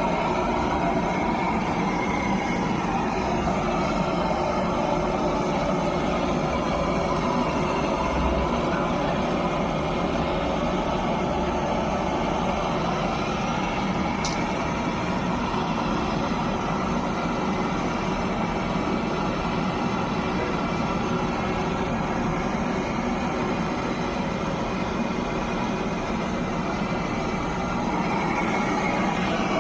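Air-conditioning unit running steadily: a continuous whirring hum with faint held tones, and a single small click about halfway through.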